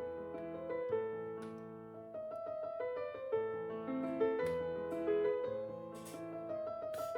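Background piano music: a calm melody of single notes and chords.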